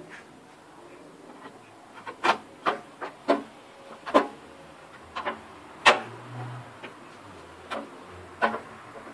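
Clear plastic blade guard of a Makita 2704 table saw being fitted onto its riving knife by hand: a series of sharp clicks and knocks of plastic on metal, about eight in all, the loudest about six seconds in.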